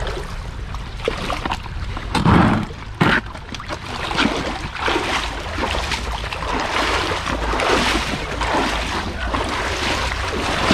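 Shallow creek water splashing and sloshing as someone wades and scoops for fish by hand, with two louder splashes a little after two and three seconds in.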